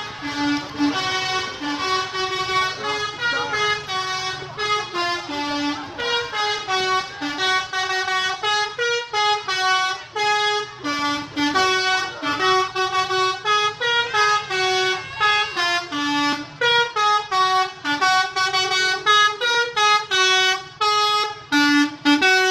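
Bus 'telolet' musical horn playing a fast tune of short notes that jump between pitches several times a second, on and on without a break.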